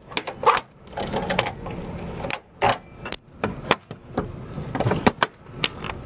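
An irregular run of sharp mechanical clicks and knocks, about a dozen in a few seconds, from handling gear on a cargo truck.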